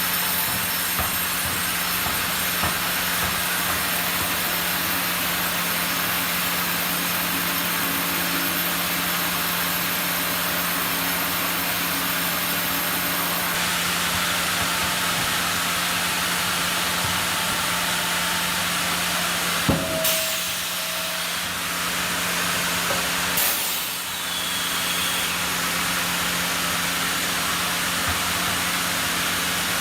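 Sawmill machinery running steadily, a constant hum under a broad hiss, with sharp knocks about two-thirds of the way through and again a few seconds later.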